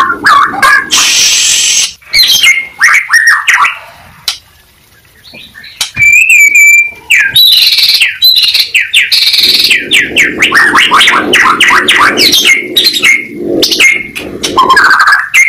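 Pied ('blorok') white-rumped shama singing a loud, varied song of quick whistled phrases. A short pause comes about four to five seconds in, then a held whistle, then a fast run of rapidly repeated notes.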